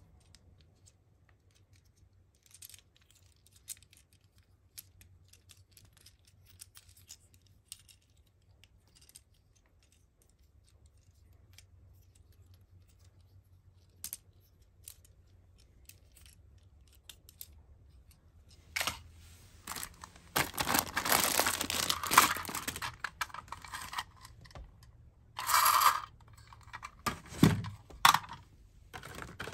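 Faint plastic clicks as the parts of a small Transformers ambulance robot toy are folded and snapped into place. About two-thirds of the way through, a louder stretch of handling noise begins as plastic toy cars and their packaging are moved about on a wooden floor.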